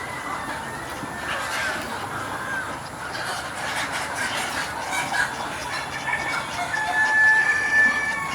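A flock of chickens clucking and calling over one another, with one drawn-out high call near the end, the loudest sound.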